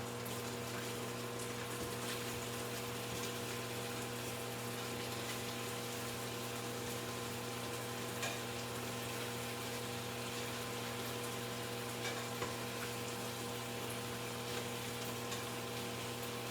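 Kitchen fan running with a steady hum over an even hiss, called not too loud a fan. A few faint clicks, twice near the end.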